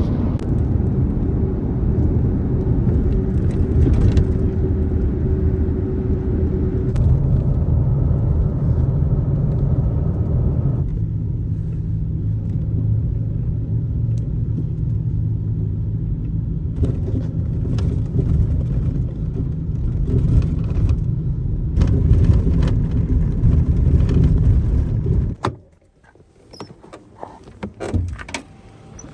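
Car interior sound while driving: a steady low engine and road drone, which stops abruptly near the end. Scattered light clicks and rattles follow.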